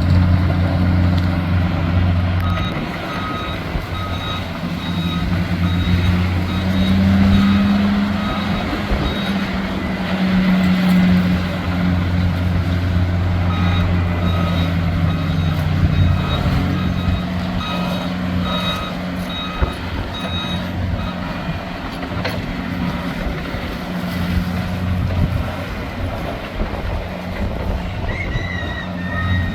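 Diesel engine of a gravel-moving machine running steadily, its pitch rising for a few seconds as it works under load, with its backup alarm beeping about twice a second while it reverses, in two stretches.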